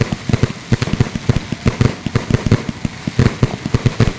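Fireworks and firecrackers going off in rapid succession: a dense, irregular crackle of sharp bangs, several a second.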